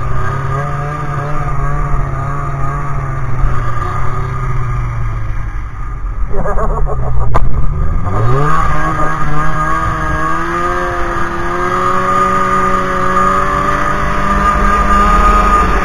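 Snowmobile engine running along the trail. It eases off a little before halfway, then revs back up in a quick rising glide and holds a steady pitch after that.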